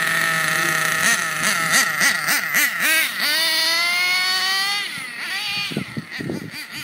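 Redcat Aftershock 3.5 RC truck's small nitro engine idling steadily, then blipped up and down several times, then revving in one long rising pull as the truck accelerates away. The revs drop off and carry on fainter in short blips near the end.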